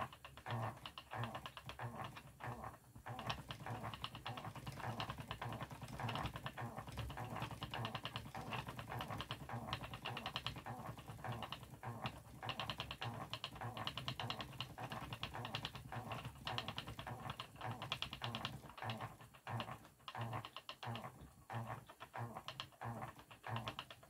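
Wooden treadle spinning wheel running, its moving parts giving a rapid, busy run of small clicks and knocks over a low pulsing rumble.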